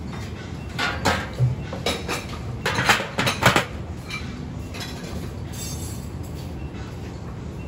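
Metal clanks and clinks as a ladle and the conical stainless steel lid knock against a bánh cuốn steamer pot, a quick cluster about one to three and a half seconds in, over a steady low background noise.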